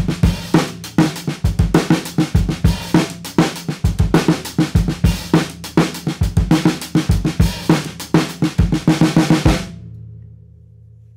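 3D-printed snare drum played with sticks in a fast, dense run of strokes, with a wallet laid on the head to dampen it and the snare wires tightened. The playing stops about three-quarters of the way through, leaving a low ring that fades.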